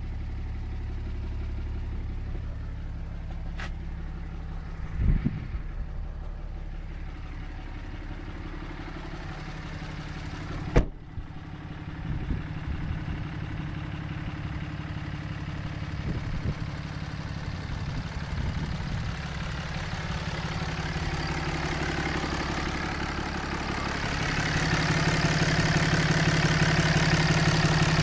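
Dodge Ram 2500's 6.7-litre Cummins turbo-diesel inline-six idling steadily, growing louder near the end as it is heard close up under the open hood. A sharp knock cuts in about eleven seconds in.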